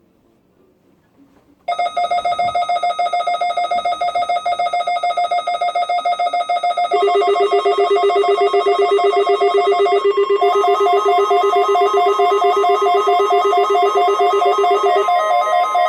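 Several overlapping electronic alarm tones. A steady beeping tone starts about two seconds in, a lower steady tone joins at about seven seconds, and a warbling tone comes in around ten seconds. The lower tone drops out near the end.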